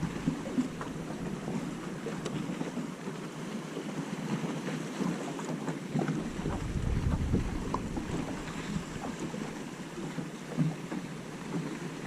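Wind buffeting the microphone over choppy water lapping against a small boat's hull: an uneven, gusting wash with a few light knocks scattered through it.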